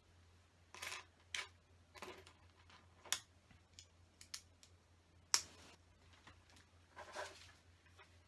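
Plastic Lego pieces being handled and fitted together: a handful of separate clicks and short rattles, the sharpest about five seconds in.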